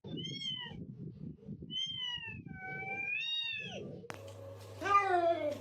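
Cat meowing: three high, thin squeaky mews in the first few seconds over a low rumbling noise, then a single louder, lower meow that falls in pitch near the end.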